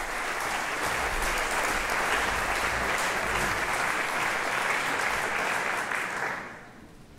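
Audience applauding, steady and then dying away about six and a half seconds in.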